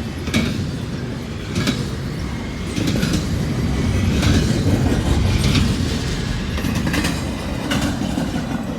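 Intermodal freight train's cars rolling past with a steady low rumble, the wheels clicking over rail joints at an even beat of about one click every second and a bit.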